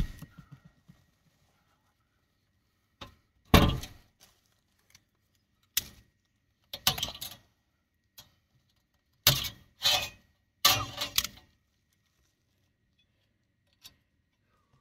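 Handling noise from a whole house fan's plastic blower housing and foil-jacketed flexible duct being fitted together: a sharp knock at the very start, then several short knocks and crinkling rustles at irregular intervals, with a close cluster of them a little past the middle.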